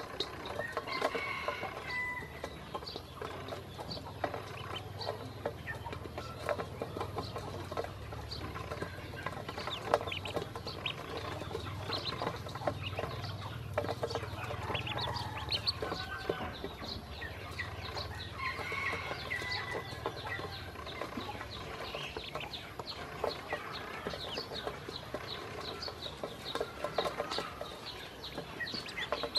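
A brood of ducklings peeping constantly in short high calls, with many sharp little clicks as their bills tap the stainless steel bowl while they peck up feed.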